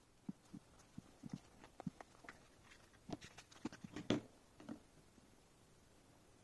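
Small clear plastic product case being handled and opened: a string of light plastic clicks and taps as the lid comes off and a USB dongle in a clear plastic shell is lifted out, loudest about four seconds in. The clicks stop about five seconds in.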